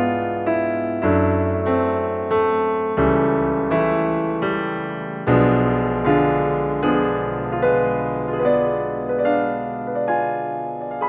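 Background piano music: an even run of struck notes, a little under two a second, each one dying away before the next.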